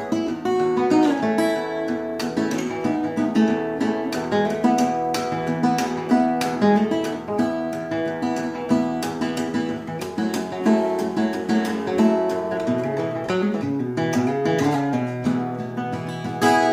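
A 1967 Martin 0-18 small-bodied acoustic guitar, tuned to drop D with a capo at the second fret, played fingerstyle with no voice: a run of quick picked melody notes over a ringing bass line.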